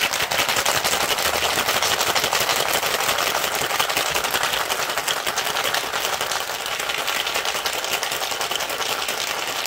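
Ice cubes rattling hard inside a metal three-piece cocktail shaker as a cocktail is shaken vigorously: a fast, continuous clatter of ice against the shaker walls.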